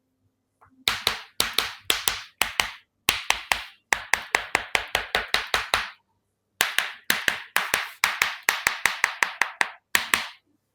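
Runs of sharp, rapid percussive taps, about five a second, with a short pause about six seconds in.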